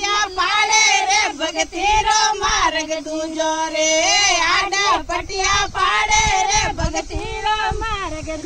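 Women singing a Marwari devotional bhajan in high voices, with long held and bending notes and no break.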